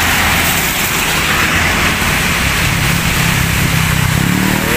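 Road traffic passing close by: a steady rush of tyres and engines, with a low engine hum running through the middle.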